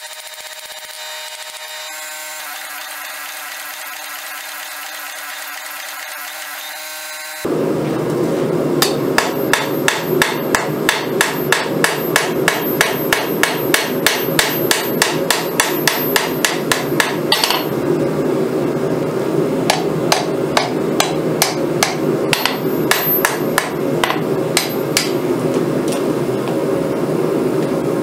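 Hand hammer striking red-hot rebar steel on an anvil while forging a blade's rough profile: steady, sharp blows at about two a second, with one heavier, noisier hit partway through. The hammering begins suddenly after several seconds of a quieter, steady hum of several tones.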